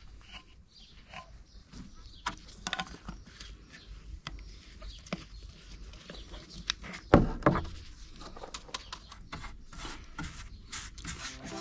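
A metal tin of G4 sealer handled and poured into a paper cup: a string of small clicks and knocks, with louder moments about two and a half and seven seconds in.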